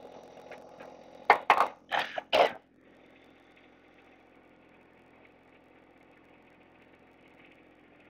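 A man coughing four times in quick succession, over the steady low hum of the compact tractor's diesel engine running.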